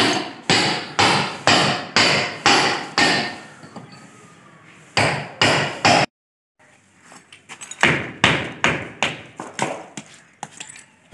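Hammer striking a cold chisel to chip ceramic tiles and concrete away from around a stainless steel sink, about two sharp blows a second, then after a short pause three more. After a sudden cut, a run of quicker, lighter hammer blows on brick and plaster.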